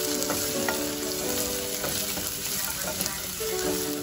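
Onion strips sizzling as they fry in oil in a saucepan, sautéing until they turn translucent. A plastic spatula stirs them, with light scrapes and taps against the pan.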